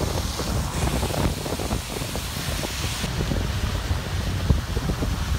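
Wind buffeting the microphone of a moving vehicle, with the hiss of tyres on a wet, rain-soaked road; the high hiss drops about three seconds in.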